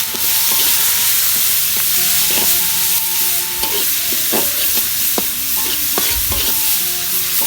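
Chopped garlic, shallots and chilies sizzling in hot oil as a spatula stir-fries them, scraping and tapping against the pan again and again.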